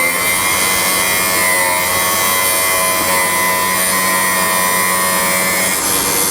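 End mill sharpening machine's grinding wheel grinding a flute of a carbide end mill: a steady motor whine with a high grinding hiss, whose tone drops out near the end.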